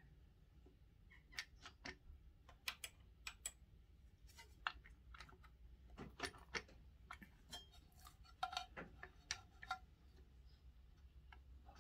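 Faint, irregular metallic clicks and taps as hands work the split engine casing of a pit bike, easing the casing half off around the gears.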